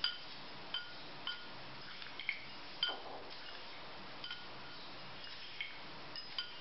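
A string of light, briefly ringing clinks, about eight or nine at uneven intervals, as roasted peanuts are picked from a small steel bowl and dropped onto a ceramic plate.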